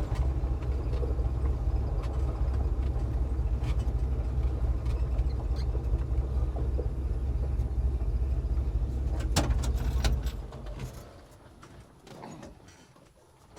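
The 1966 Chevy C10's 383 stroker V8 running steadily, with road noise, heard from inside the cab, and a couple of sharp clicks about nine and a half seconds in. About ten seconds in the running dies away within a second, leaving it quiet.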